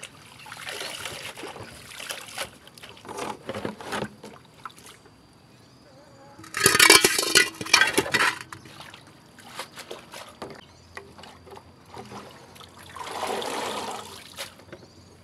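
Hands sloshing water and leafy greens in metal basins, with splashes and small knocks against the metal. About seven seconds in, a much louder rush of noise lasts about a second and a half. Near the end, water is poured splashing into a basin.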